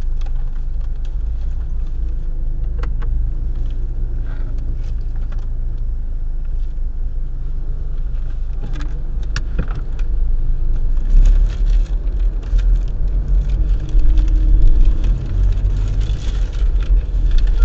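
Low in-cabin rumble of a Toyota Innova idling at a red light, rising and getting rougher as the car pulls away about ten seconds in. A few small clicks and rattles come and go.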